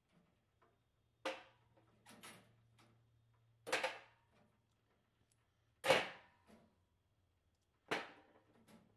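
Metal brake parts from a motorcycle caliper and master cylinder set down and shifted in a stainless steel wire basket, clattering against the mesh: about five sharp knocks roughly every two seconds, the loudest just before the middle. A faint low hum runs underneath.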